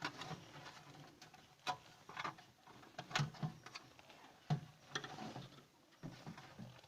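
Scattered light clicks and knocks of fridge parts being handled and fitted back into place, a few sharper taps among softer rustling.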